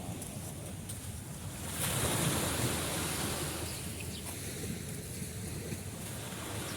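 Sea waves washing in: a steady surf hiss that swells as a wave breaks about two seconds in, then eases back.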